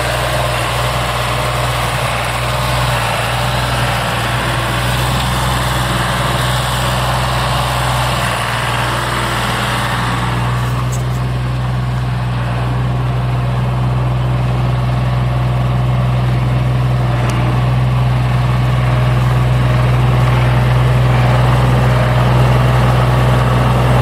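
MS65 tractor's diesel engine running steadily while pulling a rotary tiller, with a deep even hum. The higher noise thins out about ten seconds in, and the engine grows slightly louder near the end as the tractor comes closer.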